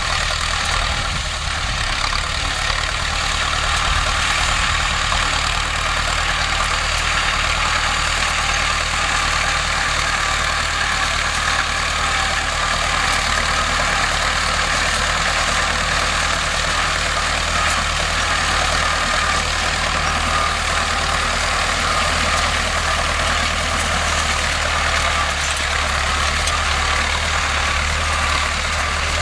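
Vladimir T-28 tractor with a T-40 diesel engine running steadily under load while pulling a GVK-6 hay tedder.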